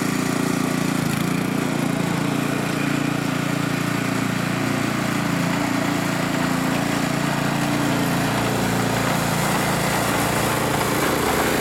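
The small engine of a Texas walk-behind sweeper with a rotary brush, running steadily under way.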